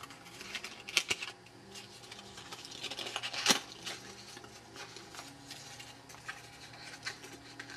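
Heavy paper being handled up close: a tabbed paper ring and paper disc turned and pressed together in the hands, with light rustling and a few sharp crackles, the loudest about three and a half seconds in.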